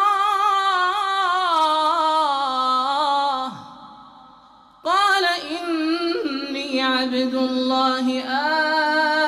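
A male Qur'an reciter's voice chanting in the drawn-out melodic tajweed style, holding long ornamented notes that slide gradually lower in pitch. He breaks off a little past three seconds for about a second, then starts a new melodic phrase.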